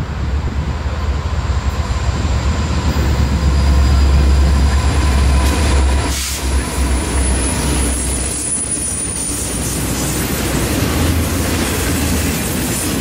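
BNSF freight train passing close by: the lead diesel locomotives' engines rumble past, loudest about four seconds in and fading by about seven seconds, then the double-stack container cars' wheels roll and clatter over the rails.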